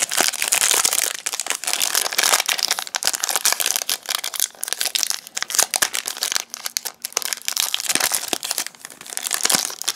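Foil wrapper of a Pokémon trading card booster pack crinkling and crackling as it is opened and handled, a dense run of crackles with a few sharper snaps.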